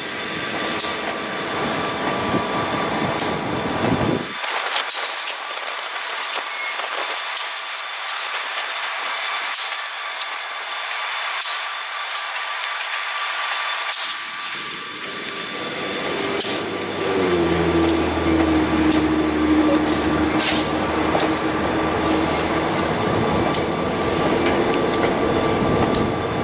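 Passenger train cars rolling slowly past in the rain: a steady hiss with scattered sharp clicks. Past the midpoint a diesel locomotive engine's low drone with a steady hum comes in and holds.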